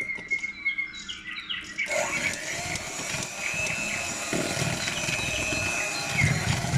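Electric hand mixer starting up about two seconds in, then running steadily with a faint motor whine as it beats eggs, sugar and salt for a cake batter. Before it starts there are a few light clinks.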